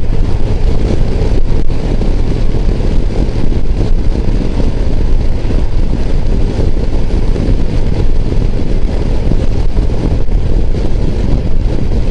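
BMW touring motorcycle running at a steady road speed, heard from the rider's seat: a steady low engine drone mixed with road and air noise, without changes in pitch.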